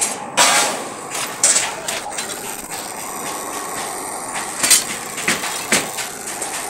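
Sharp metallic clanks, about five, over steady machine noise in a sheet-metal workshop. The clanks come from a steel plate shear and steel sheet being handled, and the loudest fall near the start and about two-thirds of the way through.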